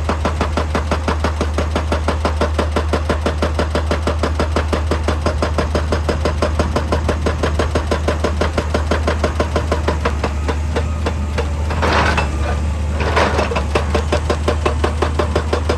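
Excavator at work: its diesel engine running under a fast, even rapping of about ten knocks a second. Twice, about three-quarters of the way through, there is a louder burst of noise, like rock grinding or crunching.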